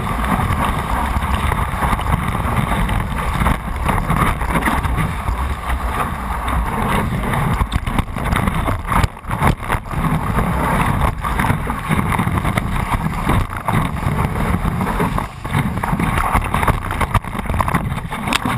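Water rushing and hissing past a stand-up paddleboard riding a breaking wave, with wind buffeting the microphone in a constant low rumble.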